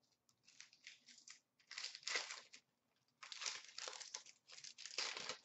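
Hockey trading card pack wrapper being torn open and crinkled by hand, in four bursts of crackling.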